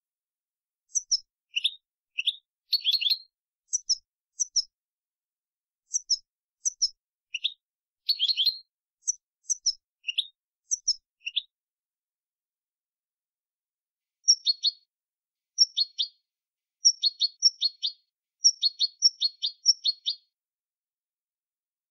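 European goldfinch singing clean song (jilguero canto limpio): short, bright twittering phrases broken by brief pauses, then a quick run of repeated notes in the second half, heard against a completely silent background.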